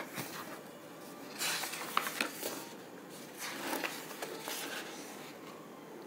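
Paper pages of a workbook being turned by hand: two soft rustling swishes, the first about one and a half seconds in and the second near four seconds, with a few light clicks of paper in between.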